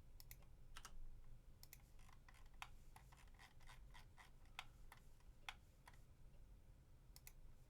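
Faint, scattered clicks of a computer keyboard and mouse, irregularly spaced, over a low steady hum.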